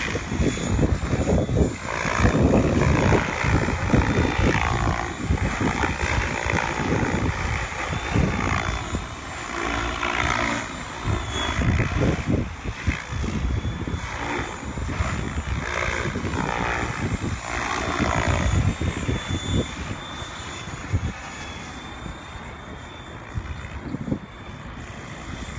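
Radio-controlled helicopter flying aerobatics: the rotor blades whoosh loudly, the pitch rising and falling over and over as the rotor is loaded and unloaded through the manoeuvres. In the last few seconds it grows quieter as the helicopter hovers farther off.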